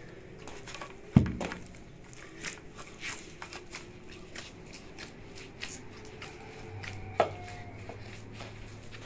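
Hands kneading stiff wheat-flour dough in a large metal basin: irregular soft squishing and slapping. A sharp knock about a second in is the loudest sound, and a second knock near the seven-second mark has a brief metallic ring.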